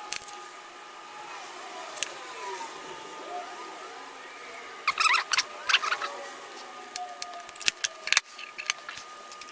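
Sharp clicks and taps of small metal parts and tools being handled while fitting a Deans T plug, bunched about halfway through and again near the end. A faint steady tone with slow sliding pitches runs underneath.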